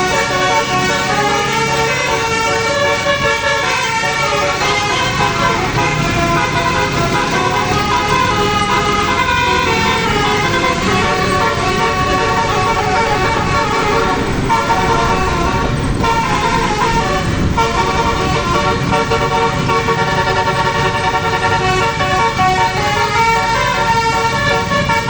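Telolet bus horn, a multi-trumpet horn, sounding several tones at once and moving from note to note in a melody without a break, with a few gliding passages.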